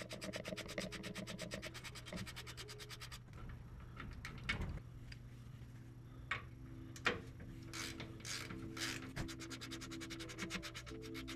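Ratchet wrench clicking rapidly as it turns out the 17 mm sway bar bracket bolts, with a pause in the middle that holds a few separate clicks and knocks before the fast clicking returns near the end. Soft background music runs underneath.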